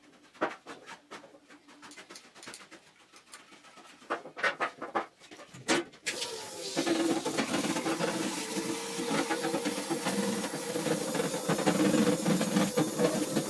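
A few light clicks and knocks, then about six seconds in a steady spraying hiss with a low hum starts abruptly.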